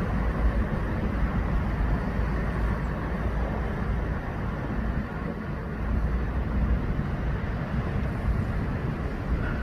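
Helicopter flying over, heard as a steady low rumble with no distinct blade beat.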